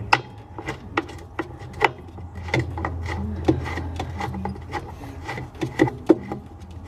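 Ratchet wrench turning and clicking as a 7/16 bolt is run down the center of a washing machine's agitator, with irregular sharp metal clicks and knocks throughout.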